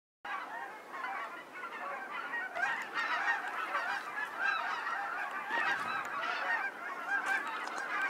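A large flock of wild geese calling high overhead: a continuous chorus of many overlapping honks that starts suddenly just after the beginning.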